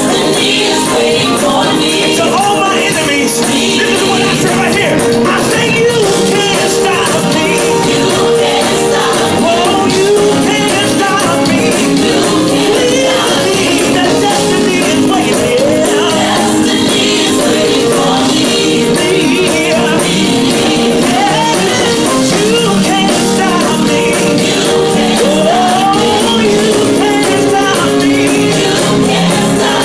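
Live gospel music played loud and steady: a male lead singer ad-libbing with wavering runs over a band's held chords, with busy high percussion throughout.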